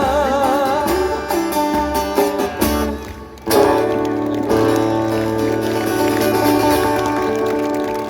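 Acoustic guitar closing a live folk song. A sung note with vibrato ends in the first second, guitar notes follow, and after a brief dip about three and a half seconds in, a final strummed chord rings on.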